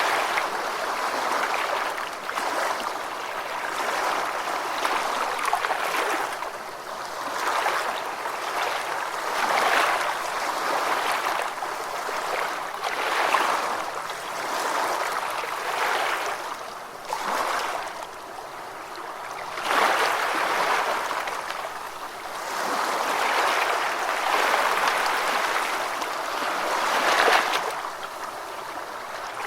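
Gentle ocean waves washing onto a beach, swelling and ebbing every two to four seconds.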